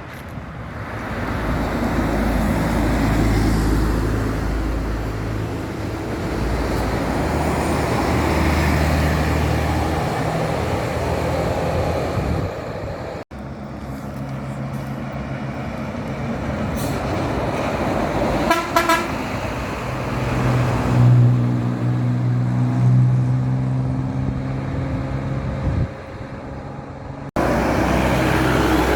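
Buses passing with engines running and sounding multi-tone telolet (basuri) horns, with a quick run of repeated horn notes a little past the middle. The sound changes abruptly twice.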